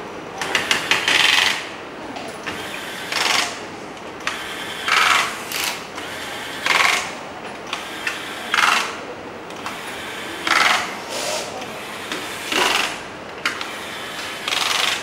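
Assembly-bench work noise: short scraping and whirring bursts about every two seconds over a steady workshop background, from plastic inspection-camera housings and parts being handled and worked.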